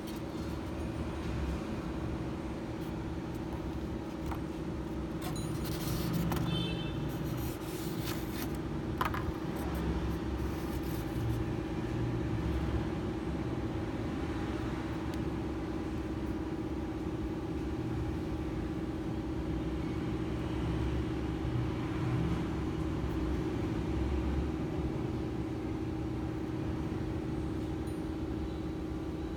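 Steady background hum with a low rumble beneath it, like a running machine or motor, with a few faint clicks about six to nine seconds in.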